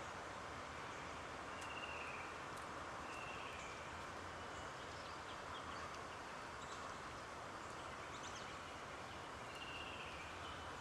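A steady outdoor hiss with a few short, faint, slightly falling chirps, one early, one at about three seconds and one near the end, and scattered light ticks.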